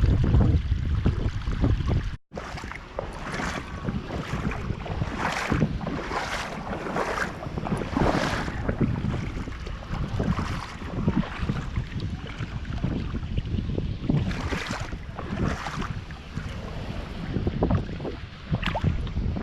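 Outdoor wind rumbling and buffeting on the microphone. Short swishing noises come over it about once a second for stretches, and the sound drops out for an instant about two seconds in.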